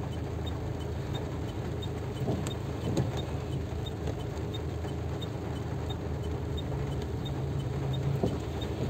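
Car engine idling, heard from inside the cabin as a steady low hum, with a faint regular ticking about twice a second and a few light knocks.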